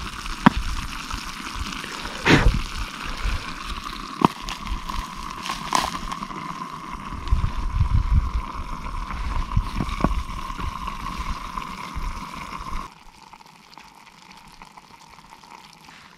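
Vegetable stew bubbling and sizzling in a metal mess tin set in hot embers, a steady hiss broken by a few knocks of flat stones being set over and around the tin. The bubbling stops abruptly about thirteen seconds in.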